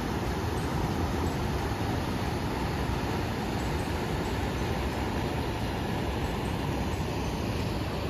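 Steady rush of the Indravati River running over rock ledges and small rapids just above Chitrakote Falls, an even, unbroken roar of water.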